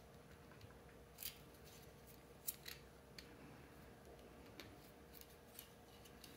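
Faint, scattered clicks and scrapes of small 3D-printed plastic clock parts being handled and worked together in the fingers, about half a dozen short ticks over a near-silent background.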